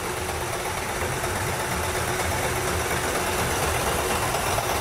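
Lada engine run with no crankshaft bearings, making a steady, even mechanical sound as it is started.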